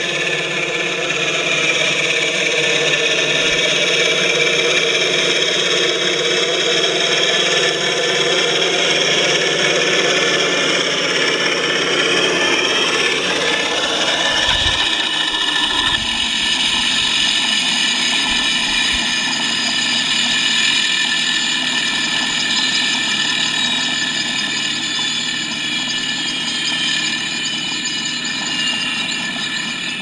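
A quadcopter's electric motors and propellers whine along with a simulated helicopter engine sound that the onboard MrRCSound V4.1 board plays through transducers mounted on a foam block. Several steady tones sweep up and down in pitch about halfway through. After that the sound holds a steady pitch and grows slightly quieter near the end.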